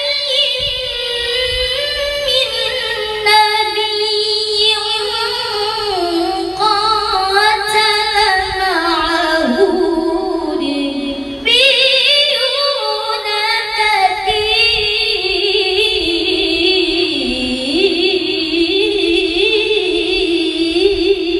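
A woman singing a slow, ornamented melody, holding long notes that glide between pitches. The line breaks off briefly about halfway through, then goes on.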